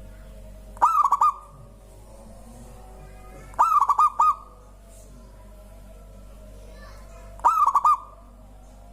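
Zebra dove (perkutut) cooing: three short phrases, each a quick run of four or five notes, spaced about three seconds apart.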